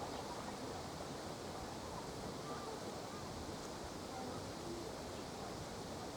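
Steady wind blowing, with low fluttering rumble on the microphone and a few faint short pitched calls under it.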